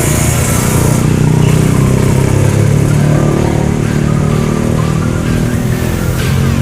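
Old Toyota Corona's engine running steadily, its pitch wavering slightly.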